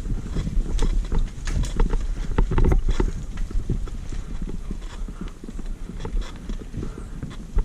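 Mountain bike rolling over a bumpy dirt trail: irregular knocks and clatter from the tyres, frame and chain over roots and bumps, with a low rumble beneath. The clatter is heaviest in the first three seconds and eases after that.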